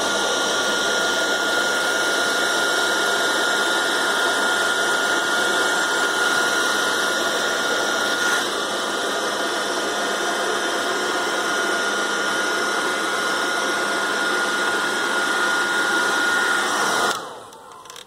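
Master EcoHeat heat gun running steadily on heat-shrink tubing: an even blower rush with a steady high whine from its fan motor. It cuts off shortly before the end.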